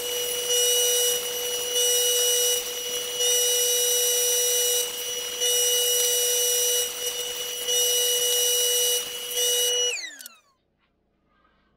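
Electric woodworking saw running at full speed while cutting wood, its motor making a steady whine. The cutting noise swells and eases several times in a row as the boards are fed through. About ten seconds in, the saw is switched off and its whine falls away as the blade spins down.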